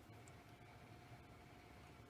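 Near silence: faint room tone with a steady faint hum.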